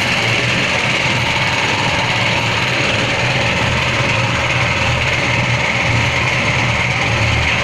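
Dry animal-feed mixing machine of 50 kg capacity running steadily: a low motor hum under an even rushing, scraping noise from the mixing.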